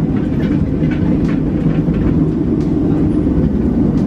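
Tram running on its rails, heard from inside the car: a steady low rumble with faint light clicks and rattles.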